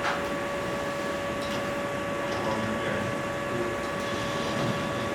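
Steady room noise: a constant hiss with a steady hum tone and its overtones, and a few faint short taps.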